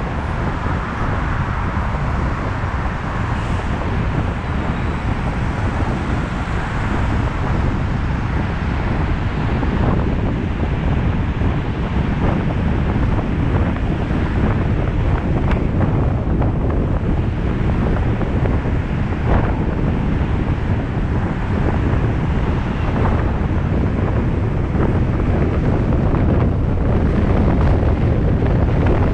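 Steady rumble of a moving car's road and wind noise, with wind buffeting the microphone.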